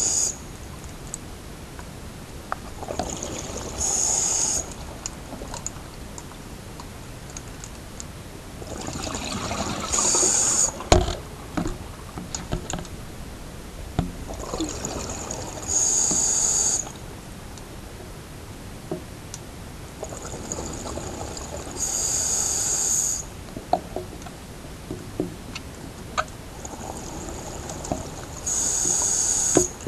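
Diver's breathing through dive gear heard underwater: slow, regular breath cycles about every six seconds, each a rush of bubbling followed by a short hiss, with small clicks in between.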